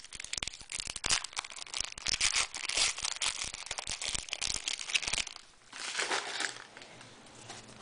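Foil trading-card pack wrapper crinkling and crackling as it is handled: a dense run of crackles for about five seconds, then a short quieter rustle near the end.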